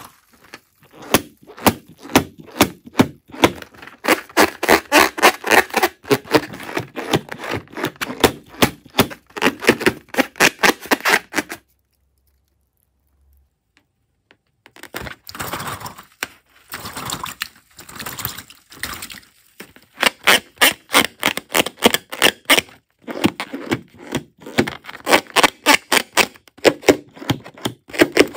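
Slime and glue being squished and stirred by hand, giving rapid sticky clicks and pops several times a second, with a pause of about three seconds midway.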